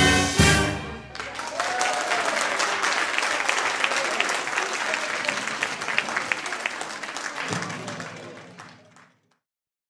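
Marinera music ends on its last chords about a second in, and an audience applauds, the clapping fading away near the end.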